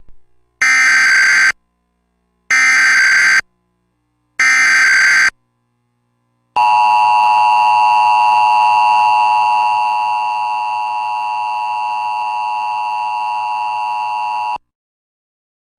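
Emergency Alert System header: three short bursts of screeching SAME data tones, each just under a second, followed by the steady EAS attention tone for about eight seconds, which drops in level about halfway through and cuts off abruptly.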